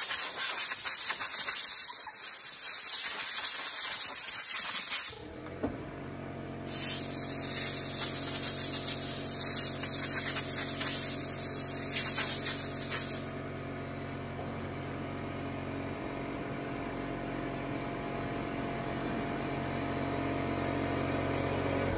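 Compressed air from a blow gun blasting dust out of a Stihl MS362 chainsaw's air-filter area: two long blasts of air, the first about five seconds, the second starting a second and a half later and lasting about six seconds. A steady machine hum sets in about five seconds in and carries on to the end.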